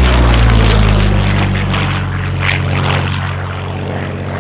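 Curtiss P-40 Warhawk's V-12 piston engine and propeller running at high power, a steady drone that eases slightly in level after about two seconds as the fighter climbs away.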